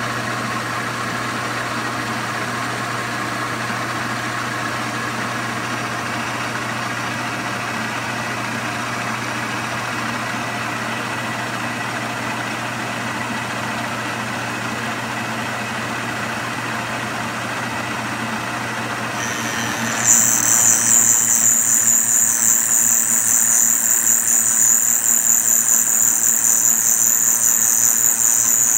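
Milling machine running with a steady motor hum. About two-thirds of the way through, the milling cutter bites into the carburetor's warped base flange and a loud, high-pitched cutting squeal starts and keeps on as the flange is surfaced flat.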